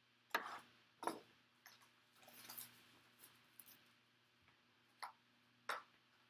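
Quiet handling of a trading-card box and its packaging: four short sharp clicks and taps, with a brief rustle about two and a half seconds in.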